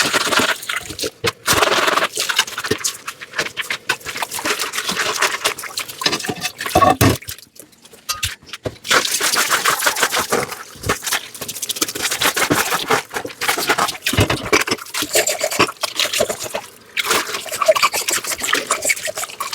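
Dishes being washed by hand in a sink: scrubbing and rubbing sounds with water and frequent small clinks and knocks, pausing briefly about halfway through.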